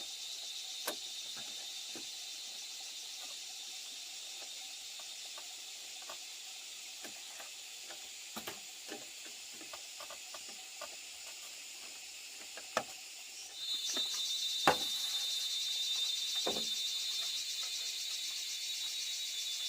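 Steady high-pitched insect buzzing outdoors that grows louder about 13 seconds in, with scattered light knocks and clicks throughout, the sharpest one about 15 seconds in.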